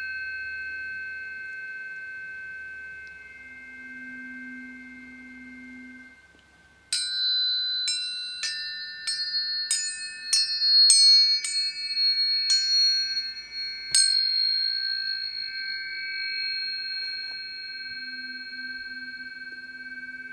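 Planetary tuning forks ringing with several steady high tones that slowly fade. About seven seconds in, a run of about nine quick strikes over seven seconds sets new overlapping tones ringing, which then sustain and fade. A low tone hums briefly twice.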